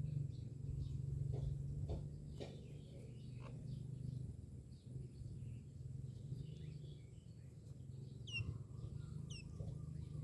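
Myna birds calling: scattered short chirps, then near the end two sharp whistles that fall steeply in pitch, about a second apart, over a steady low hum.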